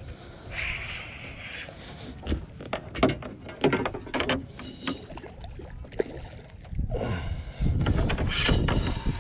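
Baitcasting reel's drag buzzing in a short run as a hooked fish pulls line against it, followed by a series of sharp knocks and bumps of handling in the boat and a rushing noise near the end.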